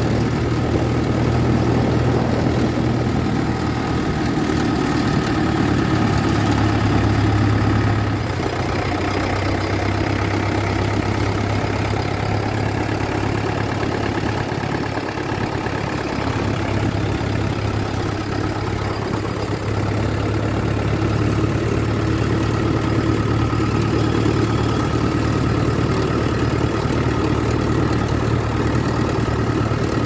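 Swaraj 843 XM tractor's three-cylinder diesel engine running steadily, heard from the driver's seat; its low hum eases a little about eight seconds in.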